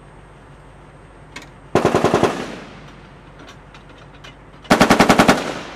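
Two short bursts of automatic fire from an M2 .50-calibre heavy machine gun, about three seconds apart. Each burst is roughly half a second of rapid shots, and an echo dies away after each.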